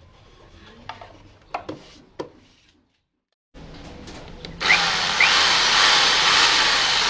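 A few light clicks and taps of a screwdriver handled on wood, then after a short break a corded electric hand drill starts about two-thirds of the way in and runs steadily, drilling into a pine board.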